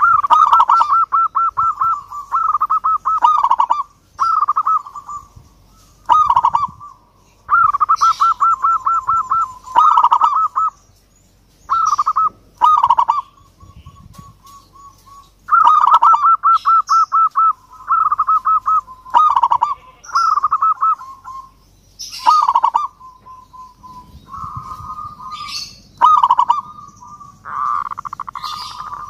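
Zebra dove (perkutut) cooing: repeated phrases of rapid, rolling coos, each one to two seconds long, with short pauses between.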